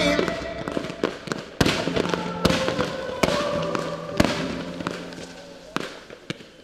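Fireworks going off: several sharp bangs about a second apart over crackling, the whole dying away toward the end.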